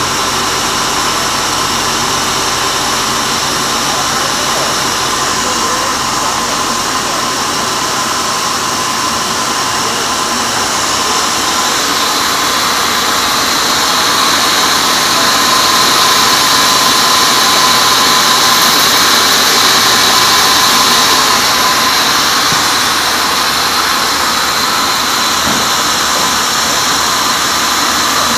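A sawmill band saw cutting a teak log: a loud, steady rushing whine from the blade running through the wood, with a high ringing tone. It grows louder for several seconds in the middle, then eases back.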